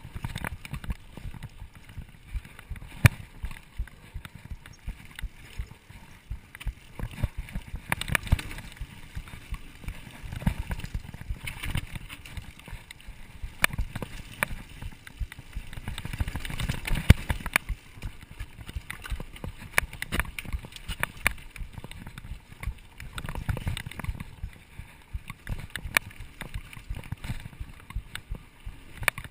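Mountain bike riding over a dirt singletrack, heard from a camera on the handlebars: a steady rumble of wind and tyres on the microphone, with frequent sharp rattles and clicks as the bike jolts over the rough trail.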